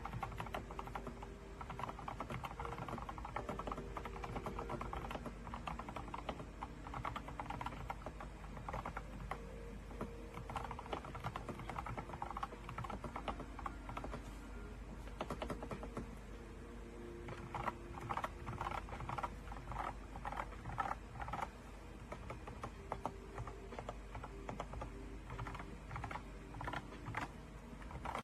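Steady typing on an RK Royal Kludge F99 wireless mechanical keyboard: a continuous, fast run of key clicks.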